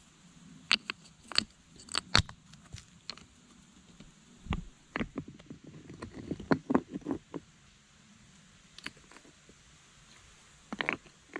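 Stones knocking and scraping against one another as flat rocks are handled and set by hand into a stacked-stone wall. Scattered sharp clacks come in clusters: several in the first few seconds, a busier run in the middle, then a pause and a couple more near the end.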